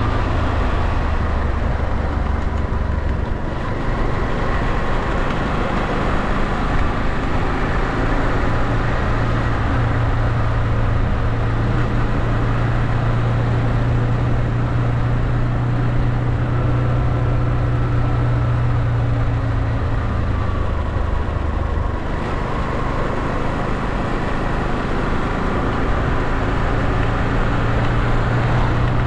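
Motorcycle engine running under way, heard from the rider's seat with wind noise. The engine note steps up a few seconds in, holds steady, eases off for a few seconds past twenty seconds, then picks up again near the end.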